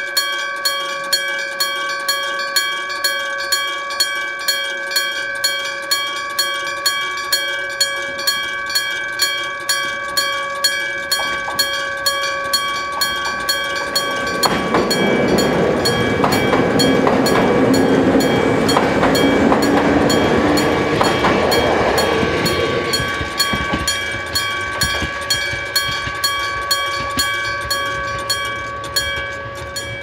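Electric-bell (denshō-type) railway crossing warning bell, its hammer striking the bell in an even, ringing beat a little over twice a second. In the middle an electric train passes through the crossing, louder than the bell, and the bell stops near the end as the crossing clears.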